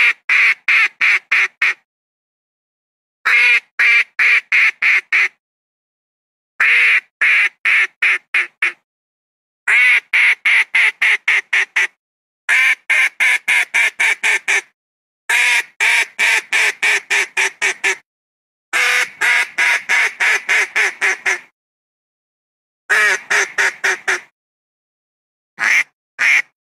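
Mallard-type duck quacking in repeated runs of about six to ten quick quacks. Each run lasts about two seconds, and the runs are separated by short, completely silent gaps.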